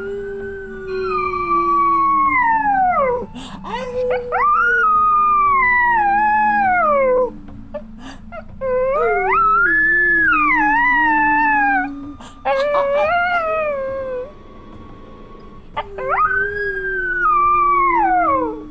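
Small dog howling: about five drawn-out howls, each rising sharply and then sliding down in pitch, with short gaps between them. A lower, slower falling tone runs beneath most of the howls.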